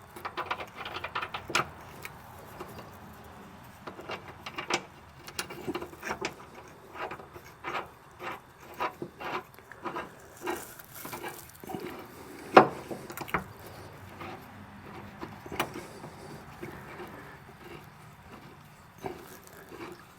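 Irregular clinks and knocks of hand tools and metal parts as a mower blade is refitted under a Yanmar 221 tractor's mowing deck, with one sharp, louder knock about twelve seconds in.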